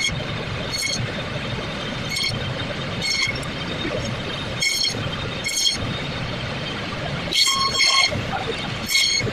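Vehicle horns honking in short, high-pitched toots, often in quick pairs, over a steady hum of background traffic noise.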